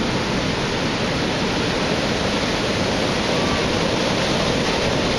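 Heavy hurricane-driven surf breaking and washing around the wooden pilings of a fishing pier, a steady, dense rush of water without let-up.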